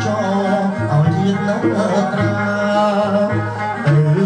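Khmer wedding music: a bass line stepping from note to note under a wavering melody.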